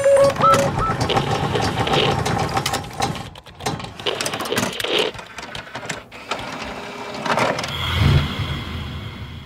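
Sound effects of an animated logo reveal: a few rising blips at the start, then a dense rattling, clicking clatter as the pieces fly together, and a deep hit about eight seconds in as the logo settles.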